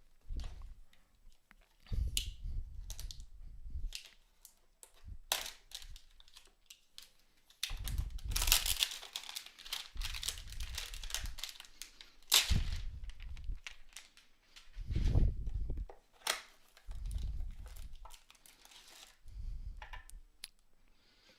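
Plastic wrapper of a trading card pack crinkling and tearing as it is opened by hand, with irregular rustles, sharp clicks and dull handling bumps.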